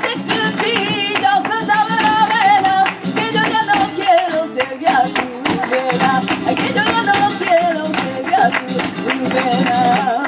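Live flamenco: a singer's wavering, ornamented vocal line over flamenco guitar, with sharp hand-clapping (palmas) and dancers' heel-and-toe footwork (zapateado) striking the stage.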